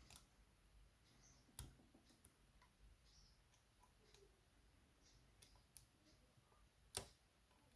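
Faint, sparse clicks of lock-picking tools working the pins of a euro cylinder lock, with a sharper click about a second and a half in and another near the end.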